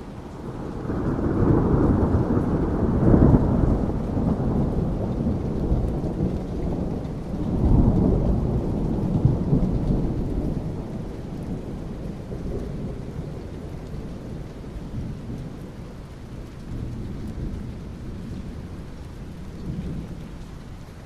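Rolling thunder rumbling over steady rain on asphalt. The rumble swells about a second in, peaks twice, then slowly fades back into the rain.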